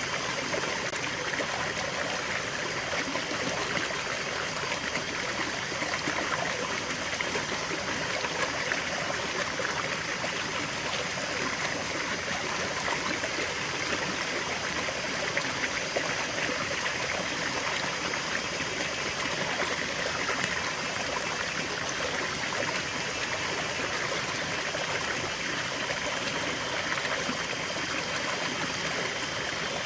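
Small stream of water running steadily over stones, a continuous trickling and babbling.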